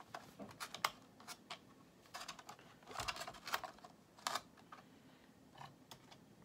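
Irregular small plastic clicks and taps as hands handle and fit parts on an Axial SCX-24 1/24-scale crawler's hard plastic body and roll cage. They come in scattered clusters, the strongest a little past the middle.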